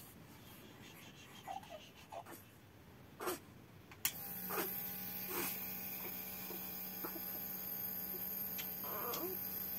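Electric nebulizer switched on about four seconds in, then running with a steady hum while it mists medicine to a sleeping infant for her cough. Before it starts, a few soft rustles and clicks.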